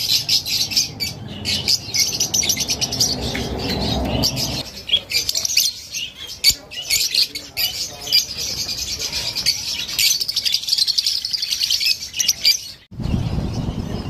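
Many small caged birds chirping and chattering at once, a dense overlap of quick high calls. The chirping cuts off abruptly near the end.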